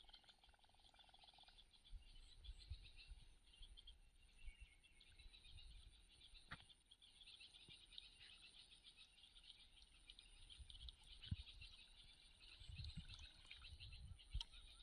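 Faint chorus of small animals calling, a dense rapid high-pitched chirring that runs on steadily, with a thin steady high whine above it. One sharp click sounds about six and a half seconds in, and a few soft low thumps come near the end.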